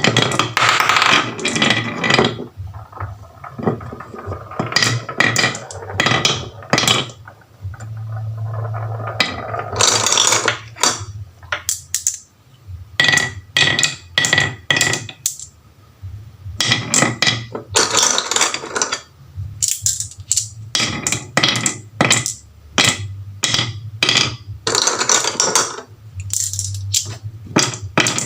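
Marbles rolling and clattering down a HABA wooden marble run: rapid clusters of clicks and knocks as they hit the track pieces, with a low rolling rumble in some stretches.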